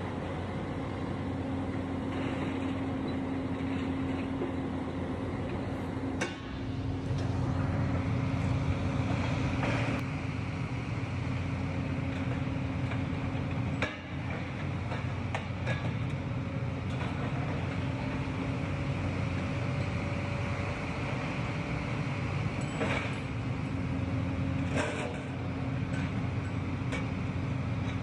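Heavy demolition machinery running with a steady engine drone and a constant low hum, broken by a few sharp knocks and clatters of steel being worked.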